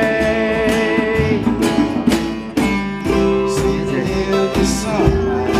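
A song with guitar and a steady beat. A sung note is held until about a second in, then the instruments play on without voice.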